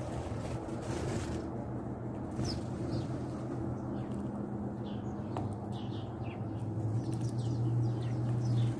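House sparrows chirping in short, scattered notes, with a flutter of wings about a second in, over a steady low hum that grows louder near the end.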